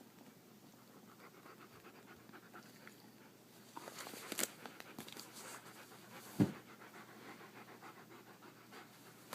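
A dog panting softly, with a sharp click about four and a half seconds in and a dull thump about six and a half seconds in.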